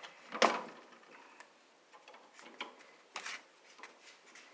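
Scattered short clicks and knocks as a handle on an old Craftsman table saw is wiggled loose on its shaft after a spray of WD-40; the sharpest click comes about half a second in, with a few lighter ones after it.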